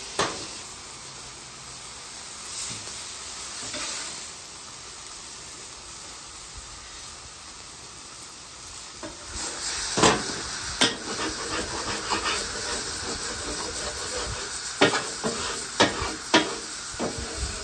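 Chicken breasts sizzling steadily on a hot flat-top griddle. From about nine seconds in, metal spatulas clack and scrape on the griddle surface several times as the chicken is lifted and moved.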